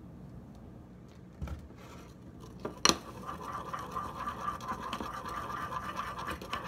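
A sharp tap about three seconds in, then a steady rough scratching: a utensil stirring and scraping the baking soda and conditioner slime mixture in a bowl.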